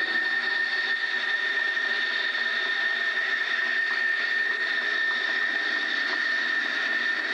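F-14 Tomcat's twin jet engines running at taxi power as the fighter rolls past, a steady rushing noise with a high whine held on one pitch.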